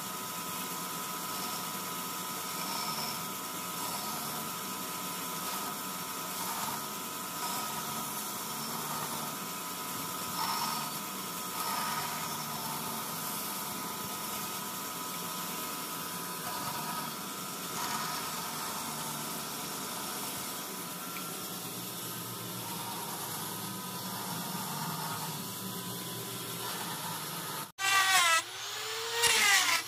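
Electric band saw running steadily, its blade cutting wooden sickle-handle blanks, with a constant hum and small swells as the wood is fed. About two seconds before the end it gives way to a louder handheld electric grinder shaping wood, its pitch rising and falling.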